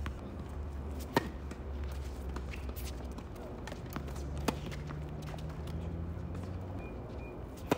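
Tennis ball being struck and bouncing on a hard court: three sharp pops a few seconds apart, the first and last loudest, over a low steady hum.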